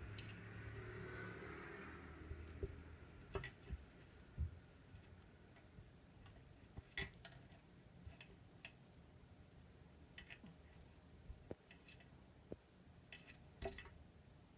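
Faint, scattered light clicks and small metallic jingles at irregular intervals, with a louder cluster about seven seconds in and another near the end.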